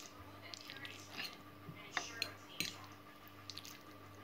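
Metal fork twirling sauced spaghetti on a ceramic plate: faint wet squishing with light clicks of the fork against the plate, two sharper ones about two seconds in and half a second later. A faint steady hum runs underneath.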